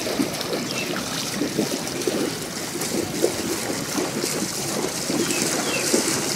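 Shallow water sloshing and splashing irregularly.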